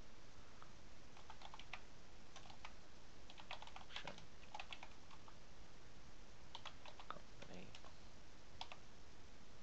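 Computer keyboard typing: keys clicking in three short bursts with pauses between them, as a word is typed out.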